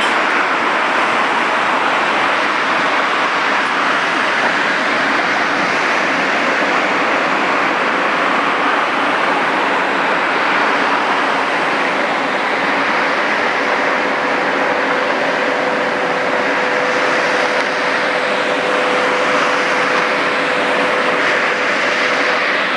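Steady, loud machinery noise: an even rushing hum without breaks, with a faint steady tone joining about halfway through.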